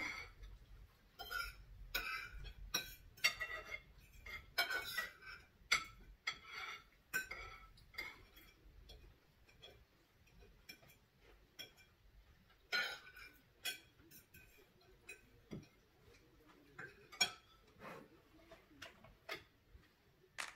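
Cutlery clinking and scraping on dinner plates as several people eat, in irregular, scattered clinks.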